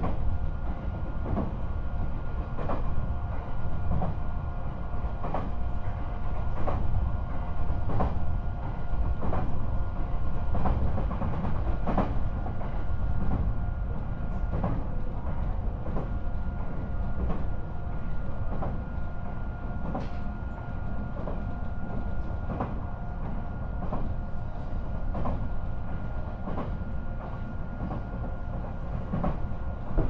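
Running sound aboard a JR East E129-series electric train car, KuMoHa E128-114, moving at a steady speed. A low rumble is broken by rail-joint clicks about every 1.3 seconds, and a steady high hum runs through it.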